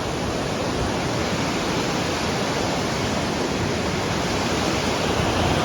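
Fast-flowing water rushing steadily, a dense even wash of sound with no breaks.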